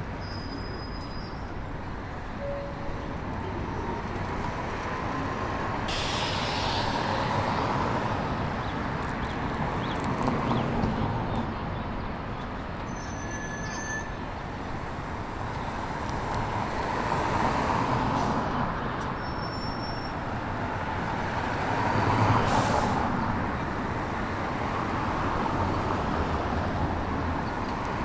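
Street traffic: a steady wash of vehicles passing, swelling and fading as each goes by. Two short hisses, about six seconds in and again near twenty-two seconds.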